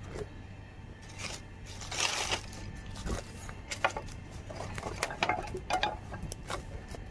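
Thin firewood sticks being pushed and knocked into a lit clay chula: a short rush of noise about two seconds in, then a run of sharp wooden clicks and knocks, under a steady low hum.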